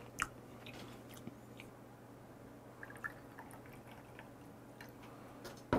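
Liquor poured from a glass bottle into a small shot glass, a faint trickle with a few light clicks. A sharper knock comes near the end.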